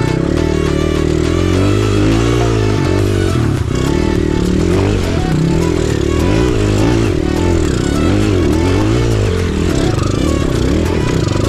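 Kawasaki enduro motorcycle engine running under load, its pitch rising and falling repeatedly as the throttle is opened and closed.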